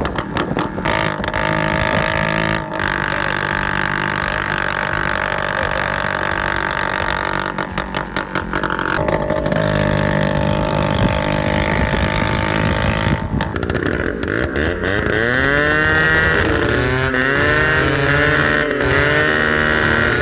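Scooter engine running loud through a dholki, a short open exhaust fitted in place of the silencer. It holds a steady speed at first, then is revved up and down again and again in the second half.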